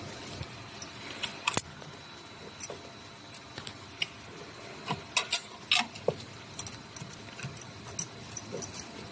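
Irregular small metallic clicks and clinks of hand tools and parts being handled during a motor replacement, thickest in the middle, over a faint steady high whine.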